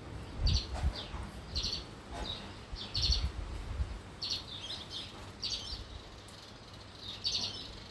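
Birds chirping, short repeated calls several times a second apart, with gusts of wind buffeting the microphone as low rumbles.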